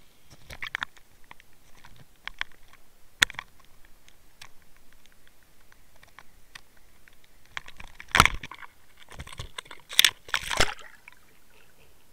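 Water splashing and crackling around an underwater camera rigged on a fishing line near the surface, with irregular clicks and knocks from the line's snap swivel against the camera. The loudest splashes come about eight seconds in and again about ten seconds in.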